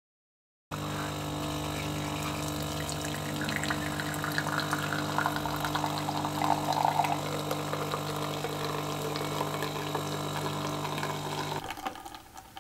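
Silent for about the first second, then a DeLonghi PrimaDonna Class bean-to-cup coffee machine brewing espresso: its pump hums steadily while coffee streams from the spout into a glass. The brewing stops about a second before the end.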